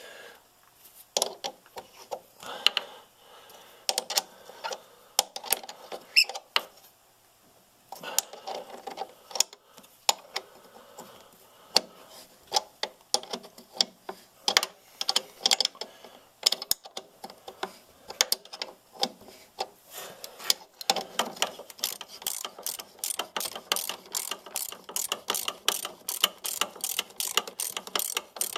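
Hand socket ratchet clicking as the track adjuster bolts on a Polaris snowmobile's rear suspension are backed off to take the tension off the track. First come scattered metal clinks and knocks, then quick, steady ratchet clicking over the last several seconds.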